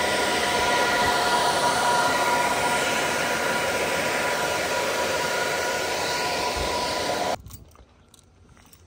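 Cooling fans of a portable resistive load bank running, blowing air through its heating elements: a steady rush of air with a high whine. The sound stops suddenly about seven seconds in, leaving faint clicks.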